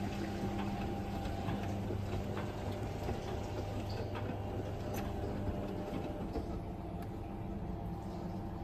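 Washing machines running a 60 °C wash cycle: a steady hum with water noise and scattered small clicks.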